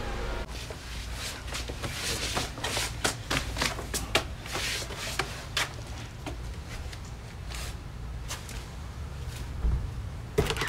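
A dense, irregular run of clicks and rustles like hands fumbling and handling things, thinning out after about six seconds. A low steady hum sits underneath, and a louder knock comes shortly before the end.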